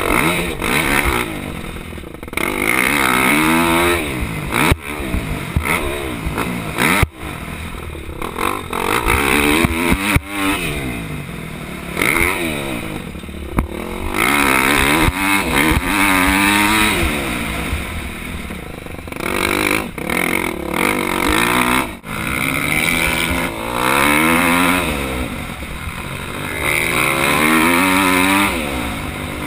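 Motocross bike engine heard from a helmet camera, revving up and falling back again and again as the rider opens and shuts the throttle around the track, over steady wind hiss. A few sharp knocks cut in along the way.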